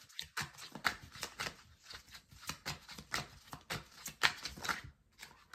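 A tarot deck being shuffled by hand: a rapid, irregular patter of cards clicking and slapping against each other.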